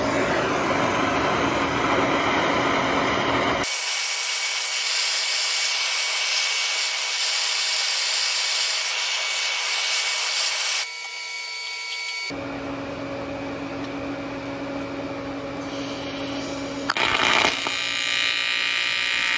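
MAP gas torch flame hissing steadily as it preheats a cast aluminum compressor housing before welding. Near the end a TIG welding arc starts, an even buzz on aluminum.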